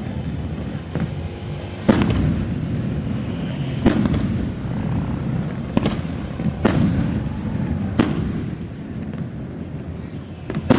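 Fireworks display: aerial shells bursting in sharp bangs about every one to two seconds, about six in all, with a continuous low rumble of echoes and distant bursts between them.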